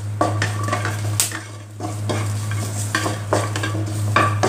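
A spatula scraping around a non-stick wok in repeated strokes, tossing whole chilies, shallots and garlic as they dry-roast with salt, with a light sizzle. A steady low hum runs underneath.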